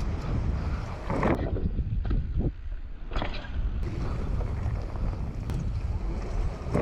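Wind buffeting the microphone of a camera worn by a mountain biker riding a dirt-jump trail, with the tyres rolling on packed dirt. There are a few short, louder rushes: about a second in, around three seconds in, and near the end.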